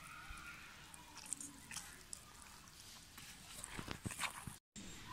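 Hand squeezing and mixing thick gram-flour batter in a steel bowl: soft wet squelches, louder near the end. A faint short whining call near the start.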